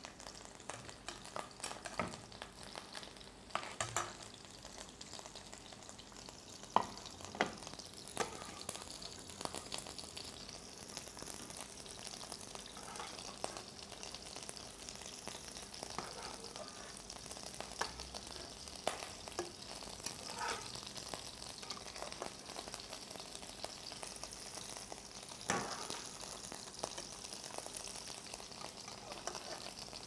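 Shrimp frying in olive oil in a pan, a steady sizzle. A few sharp clinks of a utensil against the pot and plate break through as boiled calamari rings are lifted out.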